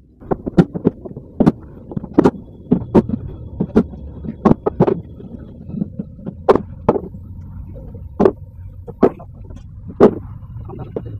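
Walnut stock blanks knocking and clattering as they are taken out of a kiln and tossed onto a pile: sharp, irregular wooden knocks about two a second, over a low steady hum.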